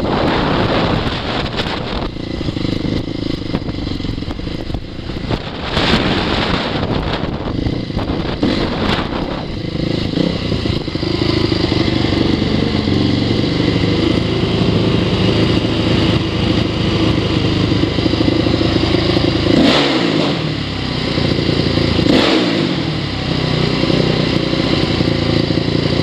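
2002 Honda CRF450R's single-cylinder four-stroke engine running while the bike is ridden, with wind noise over the microphone in the first several seconds. The engine pitch dips sharply and climbs back twice near the end.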